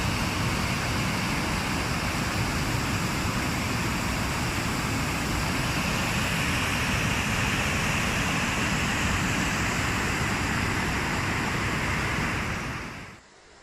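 Floodwater rushing along a wadi: a loud, steady rush of water that cuts off suddenly near the end.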